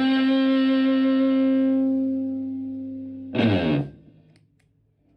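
Stratocaster electric guitar through a Tone Bender MK1.5-style fuzz pedal and Fender Twin Reverb-style amp: one fuzzy note held and slowly fading, then a short loud stab about three and a half seconds in that slides down in pitch and dies away.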